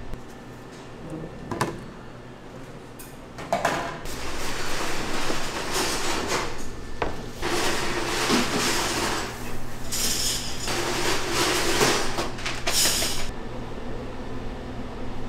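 Restaurant kitchen work: a sharp knock of dishes or utensils, then several stretches of loud hissing that start and stop abruptly, over a steady low hum.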